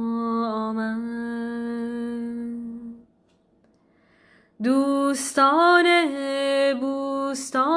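A woman chanting a Persian prayer unaccompanied: a long held note that fades out about three seconds in, a pause of about a second and a half, then the chant resumes with gliding, bending notes.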